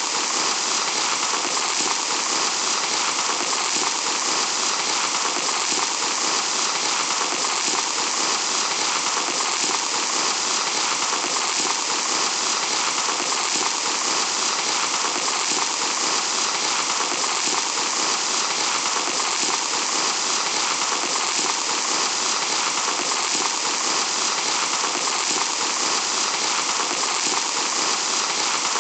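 Fine sand trickling steadily through a glass hourglass, a dense, even hiss that does not change.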